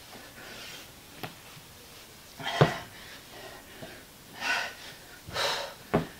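A person breathing hard from exertion during a dumbbell man maker, with about four sharp exhales. A few short knocks come from the dumbbells.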